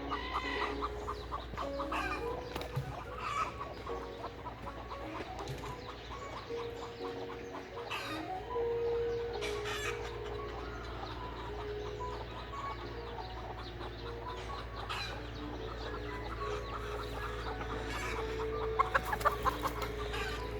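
Mother hen clucking, with her chicks peeping in short repeated calls; a louder cluster of calls comes near the end.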